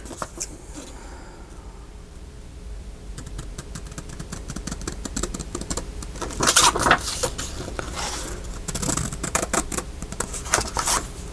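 Paper craft ephemera and its packaging being handled at a desk: rustling and small crackling clicks, louder in a few spells in the second half.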